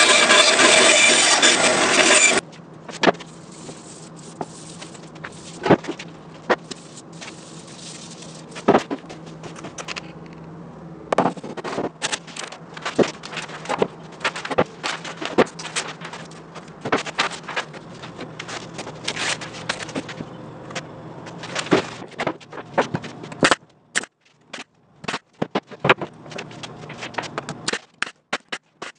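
Band saw cutting through plywood, loud and steady, stopping about two seconds in. Then a long run of sharp clicks and knocks over a low steady hum, and near the end a few sharp shots from a nail gun fastening wood blocks to a plywood letter.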